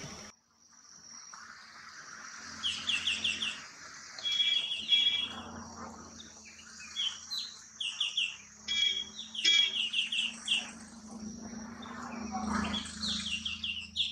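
Square-tailed bulbul calling: quick runs of short, high chattering notes, repeated every second or so, over a steady high-pitched hum.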